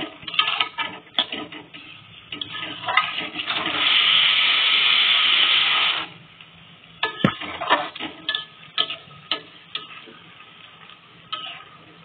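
Metal spatula stirring and scraping through a leafy vegetable curry in an aluminium kadai, with scattered clicks and knocks against the pan. About three and a half seconds in, a loud steady hiss starts, runs for a couple of seconds and cuts off suddenly.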